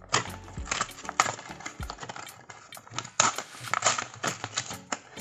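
Plastic blister packaging crinkling and crackling in irregular bursts as it is torn open by hand to free a die-cast toy car.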